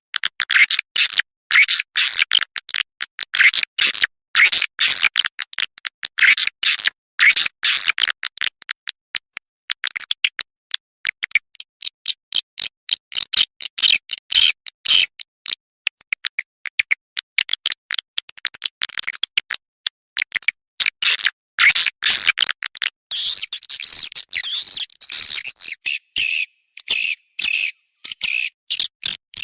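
Recorded swiftlet calling sound, the kind played to lure swiftlets into a nesting house: rapid, high-pitched chirps and clicking twitters in quick stop-start runs. It turns into a more continuous shrill twittering over the last few seconds.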